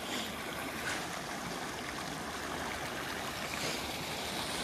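Steady rush of river current churning through a short stretch of white water over rocks.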